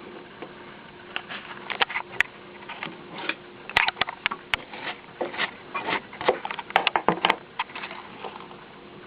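Milling set-up with its motor humming steadily while a delrin gear blank is worked, with many irregular sharp clicks and knocks, thickest through the middle.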